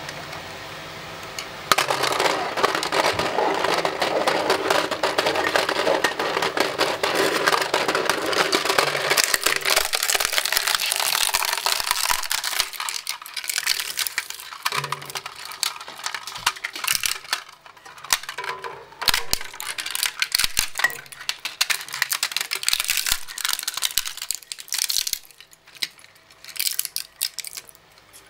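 Twin-shaft industrial shredder chewing up a plastic toy cash register: after a steady hum from the running shredder, a dense run of cracking and snapping plastic starts about two seconds in. It thins out to scattered sharp cracks as the last pieces go through the blades.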